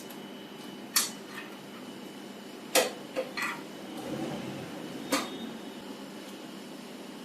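A handful of short, sharp metallic clinks and taps, about five spread over several seconds, from small metal parts and tools being handled while a replacement servo motor is mounted into a voltage stabilizer.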